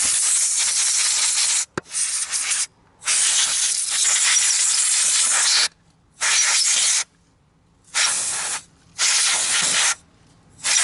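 Canned-air electronics duster sprayed in about seven hissing blasts of compressed gas, some short and one over two seconds long, blowing dirt off the contacts of a dirty air-conditioner contactor.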